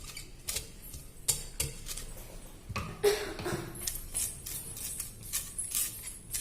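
Light clicks and scrapes against a metal cake tin while oil is rubbed over its butter-paper lining, about one or two sharp clicks a second.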